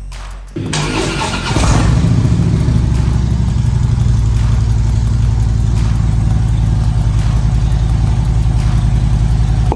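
Harley-Davidson motorcycle's V-twin engine cranking over and firing up about half a second in, then settling into a loud, steady, pulsing idle.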